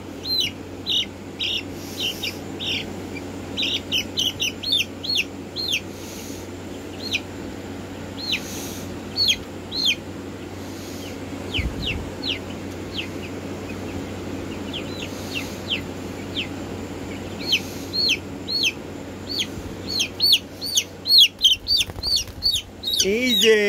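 Young Black Marans chicks peeping: many short chirps falling in pitch, one after another, sparser in the middle and busier again near the end, over a steady low hum.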